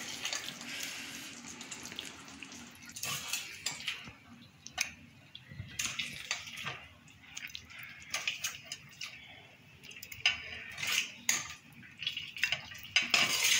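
Steel ladle scraping and clinking against a stainless steel pan as thick chicken curry is spooned into a serving bowl, with irregular knocks and wet splats of gravy.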